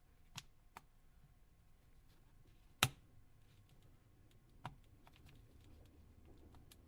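Faint scattered clicks, with a sharper click about three seconds in and another near five seconds: the snap-fit clips of a Nokia Lumia 928's A-cover being released by a pry tool slid along the gap.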